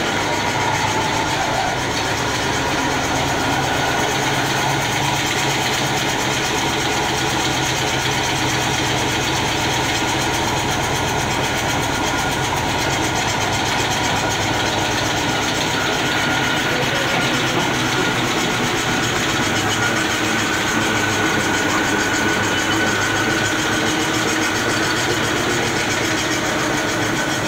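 Wood-processing machinery running steadily in a wooden stick factory: a loud, even mechanical drone with a few held tones in it.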